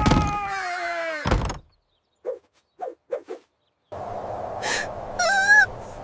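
Cartoon sound effects: a thud with a long falling whine, a second thud, then four soft taps, followed by short squeaky cries over a low hum.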